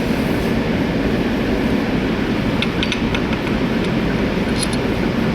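Steady low rumbling background noise, with a few light clicks about two and a half to three seconds in and again a little later.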